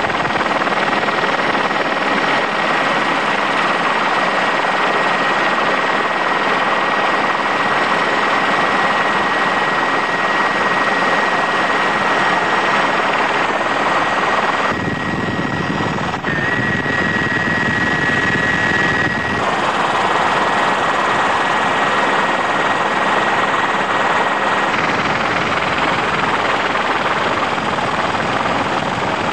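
Helicopter noise heard from aboard the aircraft: a steady, dense rush with a faint high whine running through it. The sound changes briefly about fifteen seconds in, then settles back.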